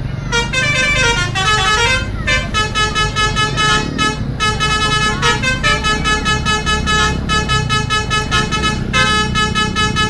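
Telolet (basuri) multi-tone musical horn on a tour bus playing a quick tune: first a run of fast changing notes, then rapid pulsing repeated chords with short breaks. The bus engine runs underneath.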